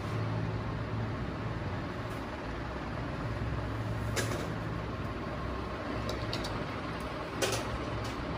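Makeup items being handled at a salon station: two sharp clicks, one about four seconds in and one near the end, and a few light ticks between them, over a steady low room hum.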